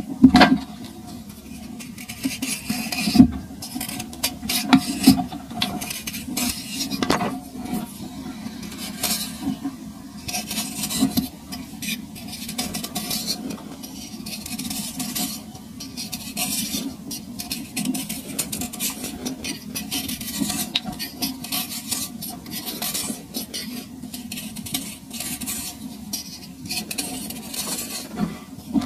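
Dry compacted sand crumbled between fingers and scraped with a craft knife blade: a steady gritty scratching full of small crackles, with a few sharper crunches in the first few seconds.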